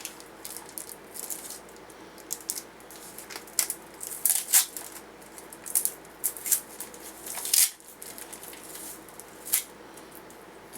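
Small items being handled and taken out of a mint-tin fire-starting kit: irregular rustles and clicks, loudest about four and a half and seven and a half seconds in.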